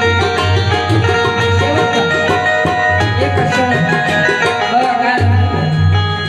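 Instrumental passage of a Hindi song with no singing: a steady percussion beat under held melody notes and a pulsing bass line.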